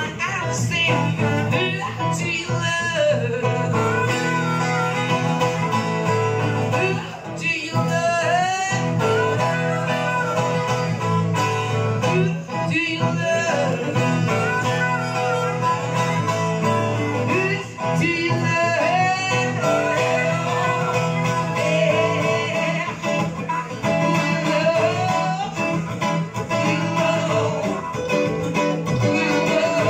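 Live blues song: an acoustic guitar strummed and picked under a woman's singing voice amplified through a microphone.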